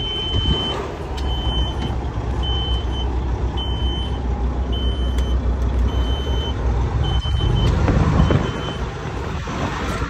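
Grain truck's diesel engine idling, heard from inside the cab, with a high electronic warning beep repeating about once a second that stops near the end.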